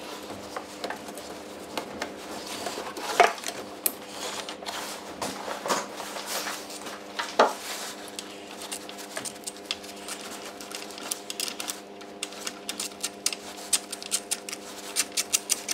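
Hand socket ratchet on an extension clicking as a bolt on the engine's intake is wound in, with a few louder knocks of tools on metal in the first half and a fast run of even clicks near the end. A faint steady hum sits underneath from about halfway.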